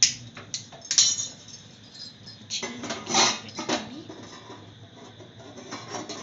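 A small cooking pan being handled and set down, metal clinking and clattering: two sharp clinks about a second apart at the start, a longer rattle of knocks a little before the middle, then a few lighter clicks.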